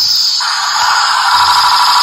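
Battery-operated Spider-Man walking robot toy playing its built-in electronic tune, a shrill, high-pitched melody with no bass.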